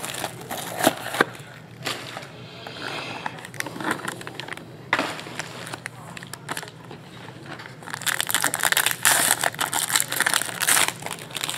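Clear plastic wrapping crinkling as it is handled, then a foil trading-card pack crackling as it is torn open; the crinkling is densest and loudest over the last few seconds.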